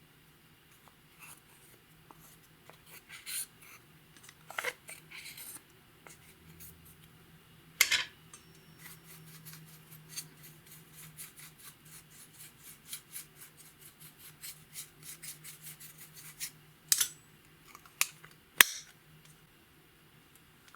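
Clear slime being worked by hand, sticky clicks and pops as it is pressed, stretched and folded, with a quick run of small clicks through the middle and a few louder pops.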